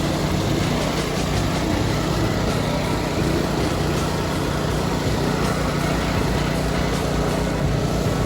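Heavy diesel engines of a concrete mixer truck and concrete pump running steadily under load during a concrete pour, a loud, even mechanical drone.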